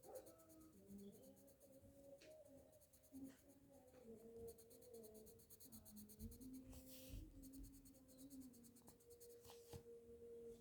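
Faint scratching of a black colour pencil shading on a colouring-book page, over faint steady tones in the background.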